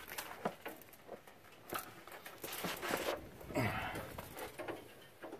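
Light handling noises: a few soft clicks and faint scrapes as a steel head gasket is handled and set over the cylinder block of a Toyota 4.7 V8.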